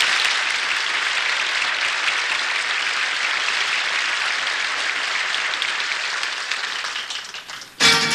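Studio audience applauding steadily for several seconds. Near the end the applause dies down and a band comes in with strummed guitar.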